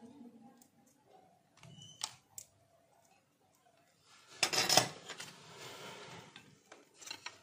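Small tools handled at a workbench while solder is cleared from a circuit board's holes: scattered light clicks and taps, and one louder sharp snap with a short rush of noise about four and a half seconds in.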